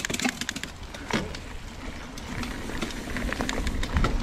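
Mountain bike setting off on a dirt trail: scattered sharp clicks and rattles from the bike and trail, over a low rumble of tyres and wind that grows louder toward the end.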